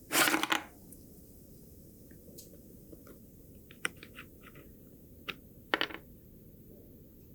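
Close-up handling of a small die-cast model car on a workbench: a brief scraping rustle at the start, then scattered light clicks and taps, and another short scrape just before the end.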